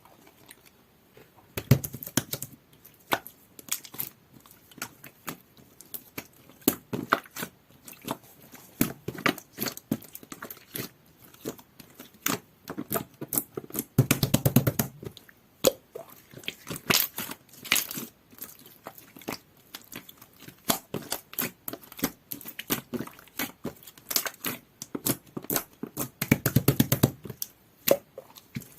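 Hands squishing, poking and stretching jelly-textured slime, giving a dense, irregular run of wet clicks and pops. It starts about a second and a half in, with two longer, louder stretches of squishing midway and near the end.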